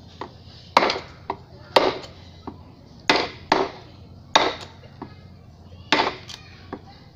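A woodcarving chisel being struck again and again as it cuts into a wooden relief panel: sharp wooden knocks at an irregular pace of about one to two a second, some hard and some lighter taps.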